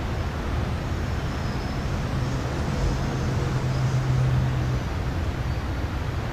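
Steady low outdoor rumble, with a low hum that swells about two and a half seconds in and drops away about three-quarters of the way through.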